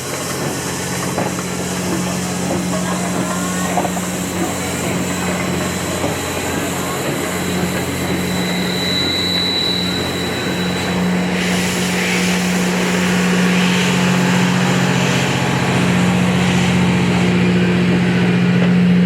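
Steady low mechanical hum, with a second lower tone joining about two-thirds of the way in, under a murmur of people talking.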